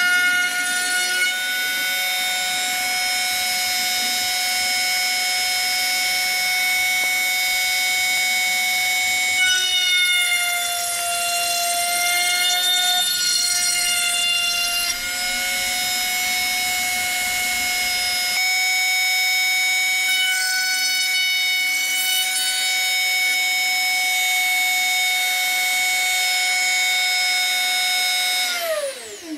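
Router mounted under a small router table, running at high speed with a steady high whine. Its pitch dips and wavers for a few seconds while the bit cuts grooves into a small plywood panel. Near the end it is switched off and winds down quickly to a stop.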